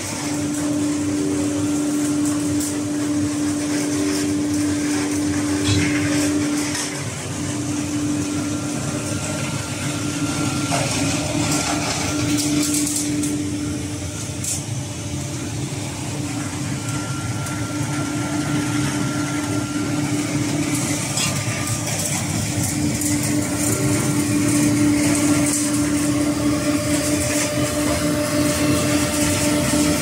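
Machinery of an automatic cotton baler running steadily: the cotton feed fan and the hydraulic power unit's electric motor and pump make a continuous noise with a steady hum, which drops out briefly a few times.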